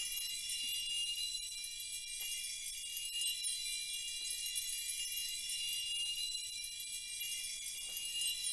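High, shimmering jingle of bells and chimes running steadily with a few held ringing tones over a bright hiss: a music or sound-effect track laid over the picture.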